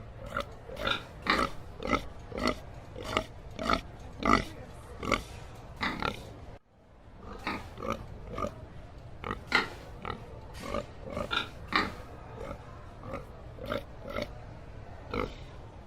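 A pig grunting over and over in short grunts, about two a second, with a brief sudden break about six and a half seconds in before the grunting resumes.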